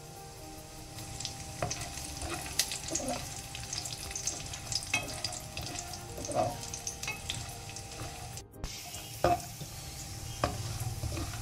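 Cashews, almonds and raisins frying in hot ghee in a metal kadai: a steady sizzle with scattered crackles, while a slotted spoon stirs and scrapes through them against the pan. The sound drops out for a moment about two-thirds of the way through.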